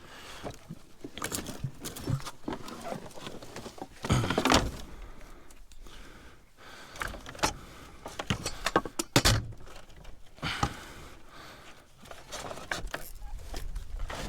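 Junk being rummaged through and shifted in a dumpster: scattered clinks, rattles and knocks, with heavier thumps about four seconds and nine seconds in.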